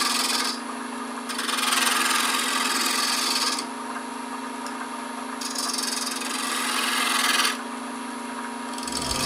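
A hand thread chaser scraping threads into wood spinning on a lathe, in three passes with short pauses between, over the lathe's steady hum.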